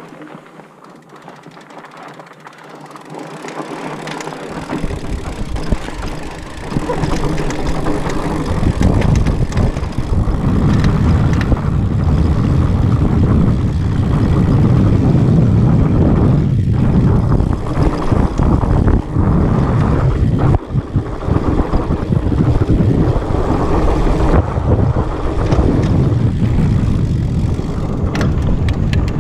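Wind buffeting the microphone of a handlebar-mounted camera on a mountain bike, with tyre rumble and frequent clicks and rattles from the bike over bumps on a dirt trail. It is fairly quiet at first and grows loud a few seconds in as the bike picks up speed.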